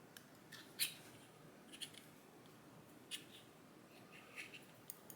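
Faint, scattered light clicks and taps of small metal parts as driver pins are worked out of a dimple lock's chambers, about five clicks with the sharpest about a second in.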